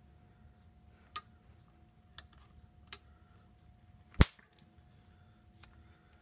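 Hand grease gun being worked on a new driveshaft universal joint's grease fitting: four sharp metallic clicks a second or so apart, the loudest a little past halfway.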